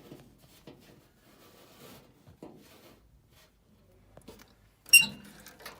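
Faint scattered handling clicks, then a single sharp metallic clink with a brief high ring about five seconds in.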